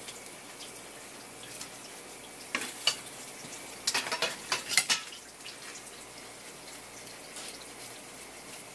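Kitchen knife scraping and tapping against a horse mackerel and the wooden cutting board as the scutes (zeigo) and scales are worked off. The sound comes in short clusters of sharp scrapes and clicks, one about two and a half seconds in and a denser one from about four to five seconds, over a steady faint hiss.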